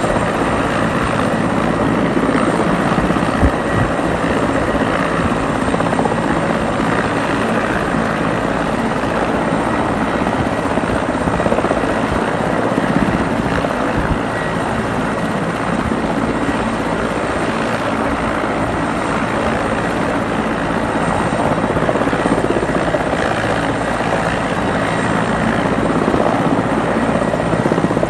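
Mi-8 helicopters running their turbines and main rotors at close range, one lifting off and hovering in blown snow. The sound is a steady, loud engine and rotor noise with a faint high turbine whine.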